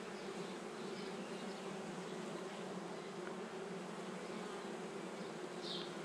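Honey bees humming steadily on a comb frame lifted out of an open hive: the even buzz of many bees.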